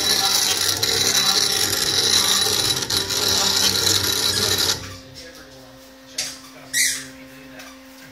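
Steady mechanical running noise from the CNC mill setup, a loud hiss over a low rumble, that cuts off abruptly about five seconds in. A quiet low steady hum is left, with two brief sounds just after.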